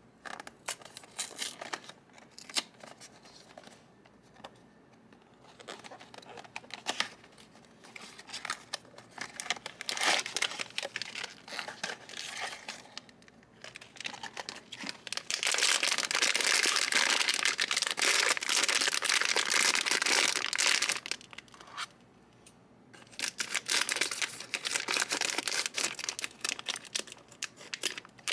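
Blind-box packaging being opened: scattered clicks and light crinkles of cardboard and plastic, then a long stretch of dense crinkling and tearing about halfway through, a brief pause, and more crinkling and tearing near the end.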